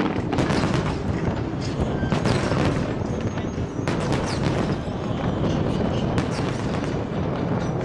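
Aerial fireworks going off in a dense, continuous barrage: overlapping booms and crackling, with sharper bangs every second or so.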